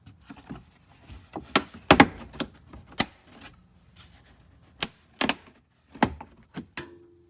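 Irregular sharp metal knocks and clinks, about a dozen, as a steel tow hitch is lifted into place and its mounting bolts are fitted under the vehicle.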